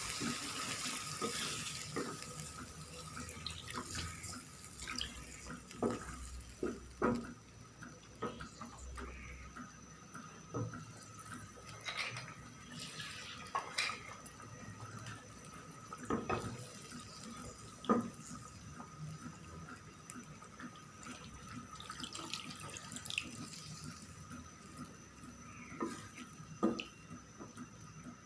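Water poured into the curry pot, a steady splashing that fades out over the first few seconds, followed by scattered light clicks and pops.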